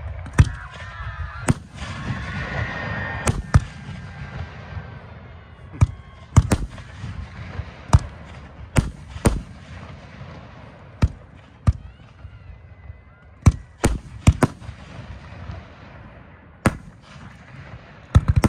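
Fireworks display: aerial shells launching and bursting, more than a dozen sharp booms at irregular intervals over a low rumble.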